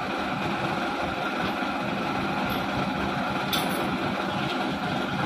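Heavy dump truck's diesel engine idling steadily, with one brief sharp click about three and a half seconds in.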